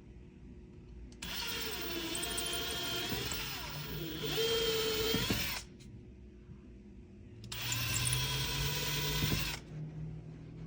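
Kobalt cordless drill boring pilot holes into the wall: two runs, the first about four seconds long starting a second in, the second about two seconds long near the end, the motor whine wavering in pitch as the bit bites.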